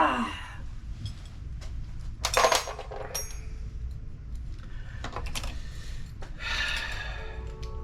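Metal parts and tools clinking and clattering as they are handled, with one louder metallic clank about two and a half seconds in that rings briefly.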